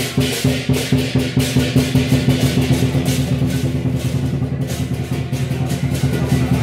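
Chinese lion dance percussion: the big lion drum beating a fast, even pattern of about five strokes a second, with clashing cymbals and a ringing gong.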